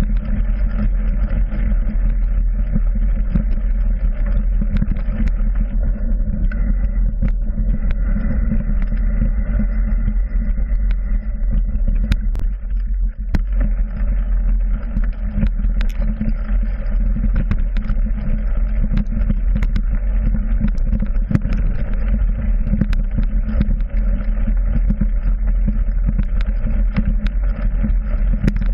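Mountain bike ridden fast over a rough forest trail, heard through a handlebar-mounted GoPro Hero 3: a steady low rumble of trail vibration and wind, with frequent sharp knocks and rattles as the bike hits bumps.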